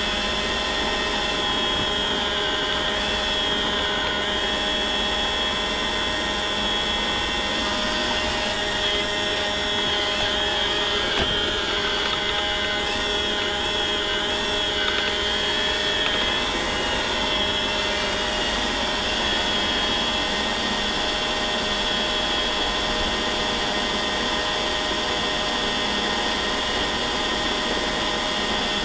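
iRobot Roomba robot vacuum running, a steady mechanical whine of its motors and brushes with several steady tones in it, heard from a camera riding on the robot.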